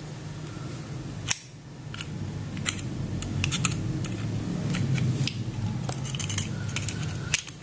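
Small screwdriver prying at the thin steel plate of a small AC synchronous motor: a string of light metallic clicks and scrapes, with one sharper click about a second in.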